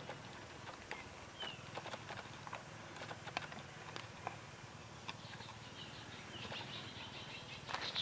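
Eld's deer grazing: soft, irregular clicks and ticks as grass is cropped, with a few short bird chirps and a louder cluster of chirps near the end.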